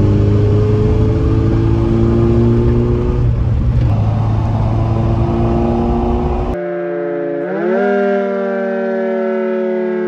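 Small car driving, heard from inside the cabin: engine and road noise with a drone that slowly climbs in pitch. About six and a half seconds in it cuts abruptly to a Cold War era dual-tone electric air raid siren sounding, its pitch stepping up once and then holding and slowly sinking.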